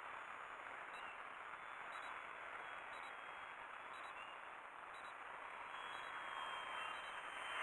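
Faint, steady whirr of a distant electric RC model plane's motor and propeller, with a thin high whine that shifts slightly in pitch now and then.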